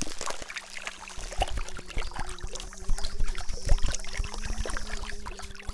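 Water splashing and trickling in many small irregular plops, with a steady low hum underneath from about half a second in.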